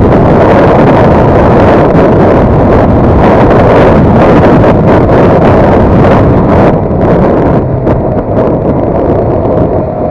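Heavy wind buffeting on a motorcycle rider's camera microphone at road speed, with the CFMoto NK250's single-cylinder engine running underneath. The wind eases somewhat about seven seconds in, as the bike slows into a bend.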